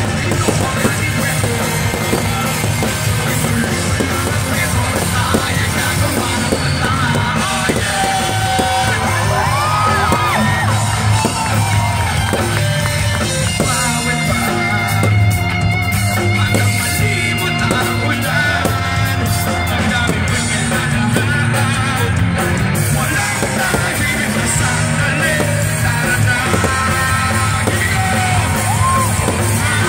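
Rock band playing live through a PA system, with a male lead singer singing into a microphone over bass, drums and guitar.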